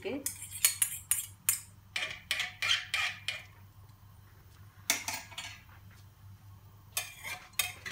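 A spoon stirring and pushing rice and dal about in water in a Hawkins pressure cooker pot. It makes a quick run of knocks and scrapes against the pot for the first few seconds, then a stroke about five seconds in and a few more near the end.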